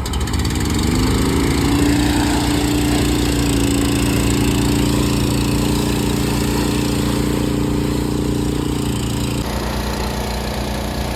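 Small gasoline engine of a pressure washer coming up to speed over about the first second, then running steadily, with its tone changing near the end.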